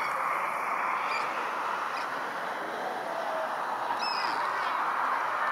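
Steady outdoor background murmur from a sports field, with a few short, faint, distant calls or shouts.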